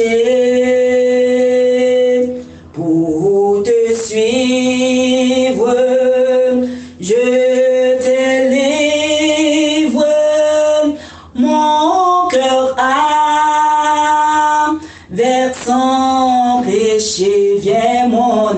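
Male and female voices singing a slow French hymn, holding long notes, with brief breaths between lines.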